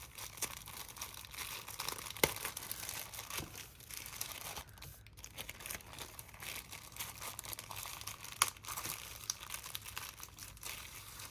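Packaging crinkling and rustling as a bundle of stationery is unwrapped by hand, with a couple of sharper crackles.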